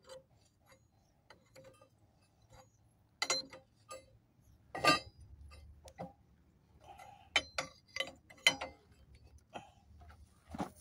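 Scattered metallic clicks and clinks of a large open-end wrench being fitted to and worked on a nut of a Yanmar TF160 diesel engine, with a few louder knocks about three, five and eight seconds in.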